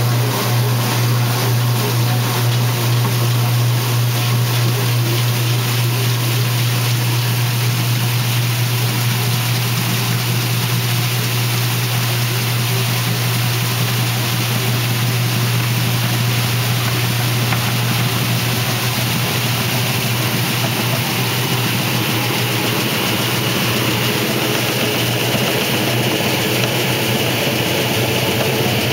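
1968 Kenmore 900 series top-loading washer in its spin cycle: the motor and spinning basket give a loud, steady low hum with an even rush over it. A higher hiss grows slightly in the last part.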